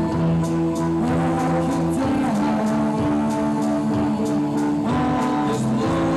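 Live electronic keyboard music: sustained synthesizer chords that shift every second or two over a steady ticking beat of about two per second.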